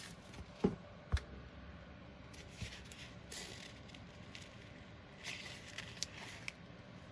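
Faint handling of a roll of Velcro adhesive hook-and-loop tape: two light clicks early on, then soft scattered rustling and scraping as the tape and its backing are fingered.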